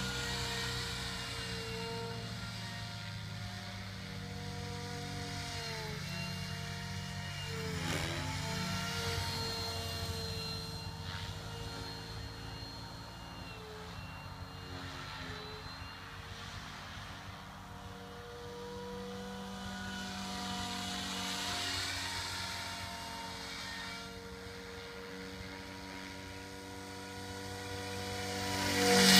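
MSH Protos 500 electric RC helicopter in flight: the steady whine of its Scorpion brushless motor and drivetrain with rotor noise. The pitch dips and recovers about seven to eight seconds in, and the sound swells sharply to its loudest just before the end.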